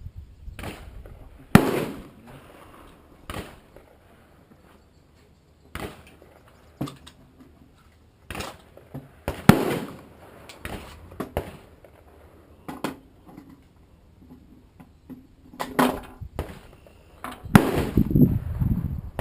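AR-15 rifle being fired and worked through stoppages: a string of sharp cracks and clacks at irregular intervals. The two loudest come about a second and a half in and near the middle, with a flurry near the end.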